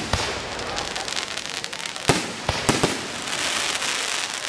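Aerial fireworks display: a dense run of crackling with several sharp bangs from bursting shells. The bangs come just after the start and in a cluster around two to three seconds in.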